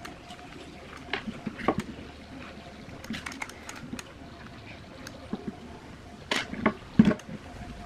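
Small scattered clicks and taps of a soldering gun tip and a bent-wire tool against a speaker crossover circuit board and its components, with two louder knocks near the end.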